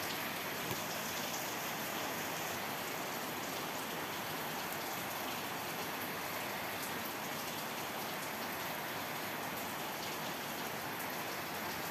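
Steady rain, an even hiss with no pauses.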